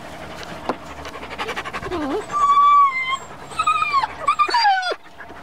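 Afghan hound puppies whimpering: a short run of quick panting, then a held high whine about two seconds in, followed by several falling whines near the end.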